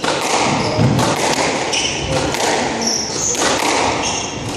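Squash rally: the rubber ball struck by rackets and smacking off the court walls in repeated sharp knocks, with shoes squeaking briefly on the hardwood floor.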